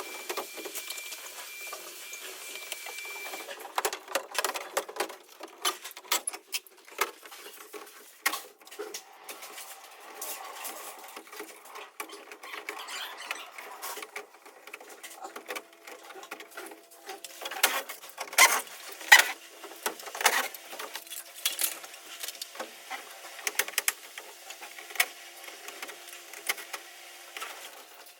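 Air-conditioner cleaning work sped up sevenfold: a rapid, high-pitched chatter of clicks, knocks and rattles from parts and tools being handled. A thin steady tone sounds for the first few seconds, and the sharpest knocks come about two-thirds of the way through.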